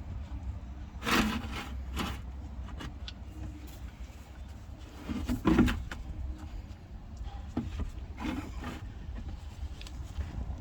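Handling sounds from working the rear differential drain plug loose and draining the old oil: a few short knocks and scrapes, the loudest about halfway through, over a steady low rumble.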